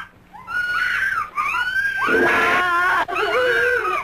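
A woman screaming in a series of high, drawn-out cries that rise and fall in pitch, with a rougher, harsher scream about two seconds in.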